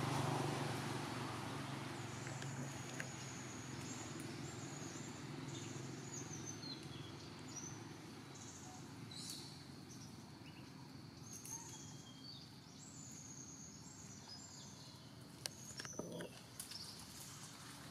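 Faint outdoor ambience. A low hum fades out over the first few seconds, followed by thin, high chirps and short whistles, and a few sharp clicks near the end.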